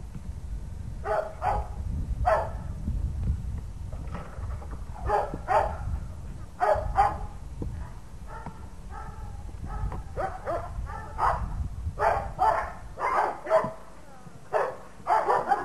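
A dog barking repeatedly in short barks, often two at a time, the barks coming more thickly in the second half.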